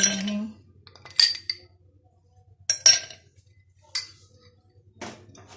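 Ice cubes tipped from a metal spoon into a stemmed glass, clinking against the glass about four times, a second or so apart, the loudest near the middle.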